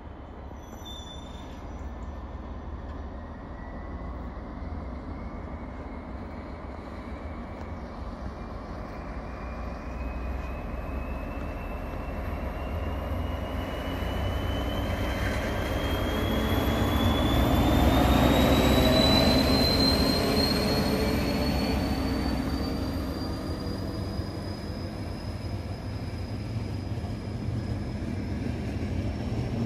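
Czech 'Brejlovec' diesel locomotive hauling passenger coaches past: a low engine rumble with a thin whine that rises steadily in pitch, growing loudest about eighteen seconds in as the locomotive passes, then the coaches rolling by on the rails.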